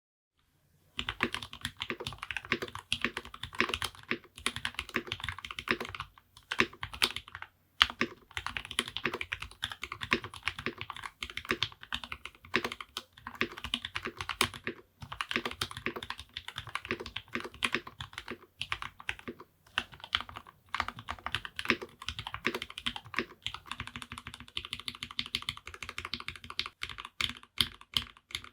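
Typing on a modded Keychron K2 mechanical keyboard with lubed Gateron Brown switches, lubed stabilisers, tempest tape and foam: a fast, continuous run of key clacks, starting about a second in with a few brief pauses.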